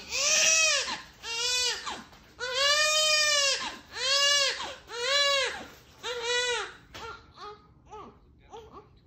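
Newborn baby crying: six loud wails, each rising then falling in pitch, followed by shorter, quieter whimpers that die away near the end.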